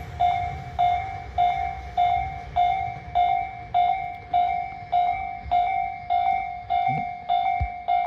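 Japanese railway level-crossing alarm ringing steadily, a little under two electronic dings a second, with the barriers down and another train signalled. Under it, a low rumble from the train that has just passed dies away over the first few seconds.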